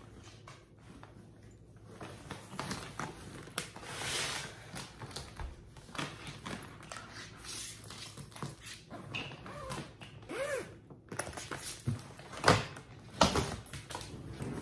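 Clothes rustling as a hard-shell suitcase is packed, then the lid being shut and the case handled, with a sharp knock near the end as it is stood up on its wheels.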